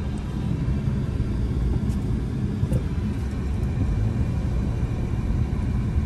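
Steady low rumble of a Suzuki car driving, heard from inside the cabin: engine and road noise.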